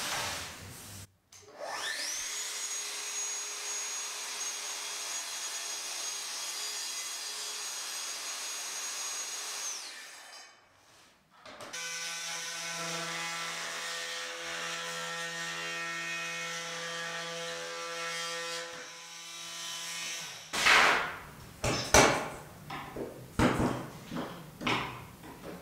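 Power tools cutting into a pine door stile. A motor spins up with a rising whine and runs steadily for about eight seconds. After a short pause a second, lower-pitched buzzing tool runs for about eight seconds. Near the end comes a run of sharp knocks as a chisel works the cut joint.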